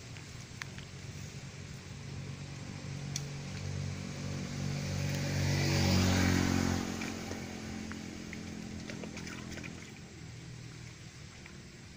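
A motorcycle passing by, its engine getting louder up to a peak about halfway through, then fading away.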